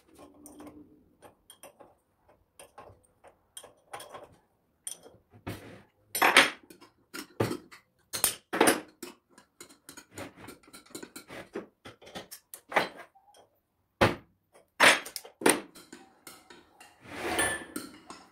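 Metal hand tools and parts of a Multilith 1250 compressor clinking and knocking on a workbench during hand assembly: irregular sharp clicks and clanks, a handful of them louder.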